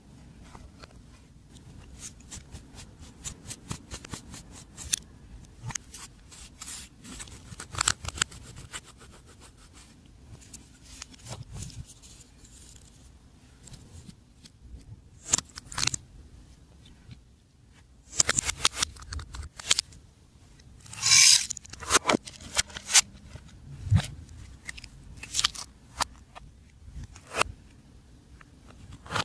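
Glossy slime being mixed and squeezed by hand, giving a run of irregular sticky clicks and crackles, with a louder, longer crackle about three quarters of the way through.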